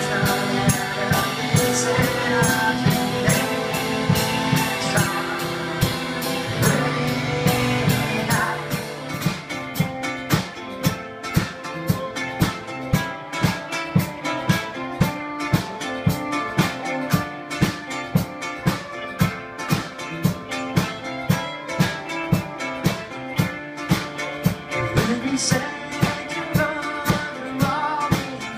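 Live band music: fiddle, guitar and keyboard with a singing voice. From about nine seconds in, a steady beat of about two hits a second drives the song.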